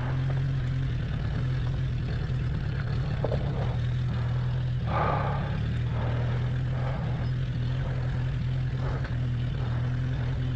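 Suzuki Bandit 1200S's inline-four engine running at a steady, low engine speed, its pitch holding level without revving.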